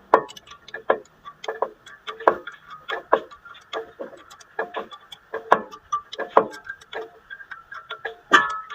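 Irregular series of short knocks and scrapes with a slight metallic ring, about one to two a second, from hand-tool work on car brake parts.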